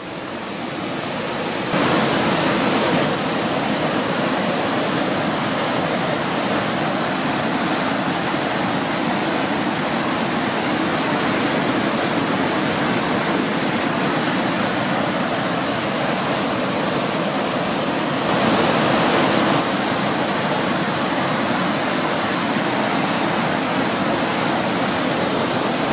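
Waterfall cascading down a rocky mountain stream: a steady, even rush of water, briefly louder twice, about two seconds in and again around eighteen seconds.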